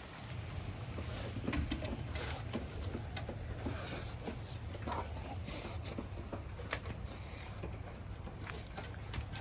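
Bulldog puppies moving about, with small scattered scratches, taps and short snuffly scuffs over a steady low hum.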